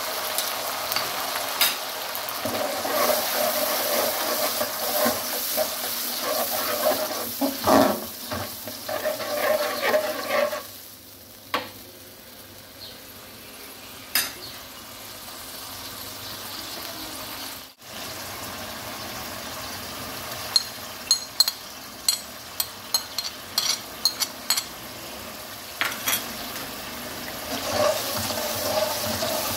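Onions and tomatoes sizzling in hot oil in a metal wok, stirred with a metal slotted spoon that scrapes and clinks against the pan. The sizzle quietens to a low simmer around the middle. A quick run of sharp metal clinks follows, and then louder stirring and frying near the end.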